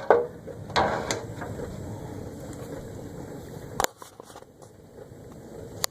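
Samsung WaterWall dishwasher running and leaking, with a steady water rush that drops lower about four seconds in. Sharp knocks and clicks come near the start, about four seconds in and at the end.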